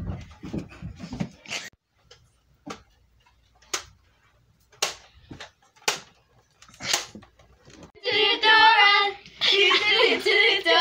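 A few scattered short knocks and clicks, then from about eight seconds in a child's high voice singing loudly in a wavering, warbling pitch.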